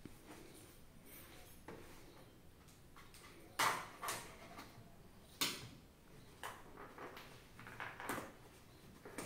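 Cardboard shipping box being cut open with a knife, its packing tape slit and torn. There are two sharp rips about two seconds apart, the first about three and a half seconds in, followed by softer scraping and rustling of cardboard.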